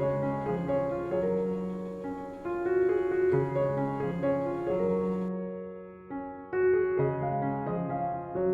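Background piano music: a gentle melody over sustained bass notes.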